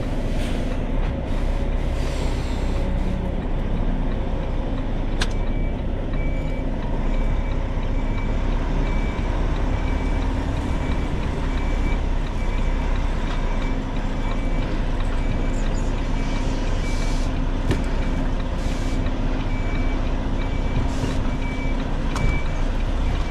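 Lorry's diesel engine running steadily at low revs during a reversing manoeuvre. A sharp click comes about five seconds in, and the lorry's reversing alarm then beeps regularly at one high pitch.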